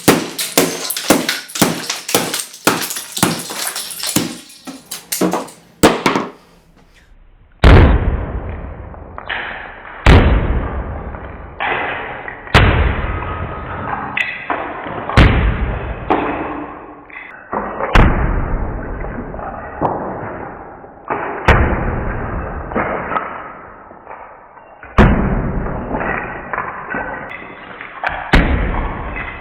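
Rapid sharp clicking for about six seconds, then a series of about ten heavy thuds, one every two to three seconds, each ringing on as it fades.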